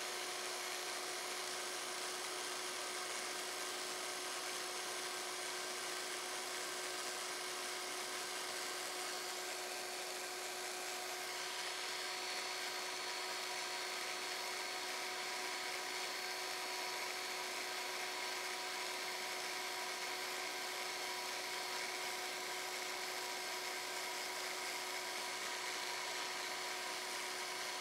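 Electric power scraper running steadily, its blade reciprocating rapidly against the top of a lathe compound slide to rough-scrape the high spots left by the blue print. A steady whirring with several fixed tones, even throughout.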